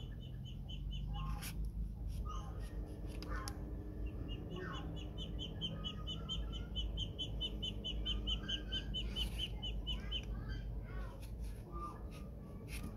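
A bird calling in the background: runs of quick, high chirps, about five a second, briefly near the start and again for several seconds through the middle, with scattered clicks and scrapes from a serrated knife paring orange peel.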